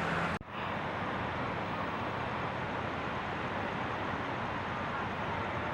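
Steady background rumble of distant road traffic, with a brief sharp drop in sound about half a second in.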